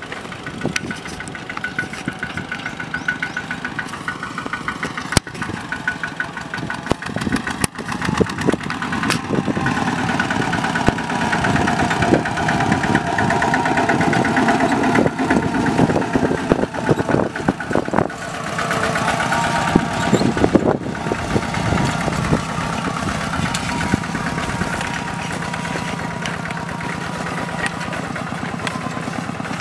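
Two-wheel walking tractor with a plow attachment, its engine running steadily under load as it plows dry soil, with an even, rapid firing beat. It grows louder in the middle as the tractor passes close, then eases off as it moves away. A few sharp knocks stand out in the first half.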